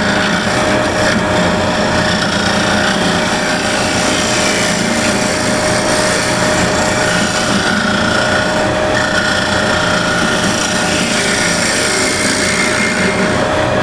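Wood lathe running with a steady motor whine while a scraper cuts the spinning wooden bowl's rim, a continuous rough scraping hiss.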